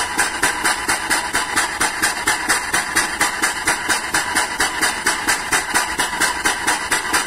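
Air-operated double-diaphragm pump running with a rhythmic hissing pulse of about five beats a second, sucking up the residual crude palm oil left in a tanker hold that the main cargo pumps can no longer draw.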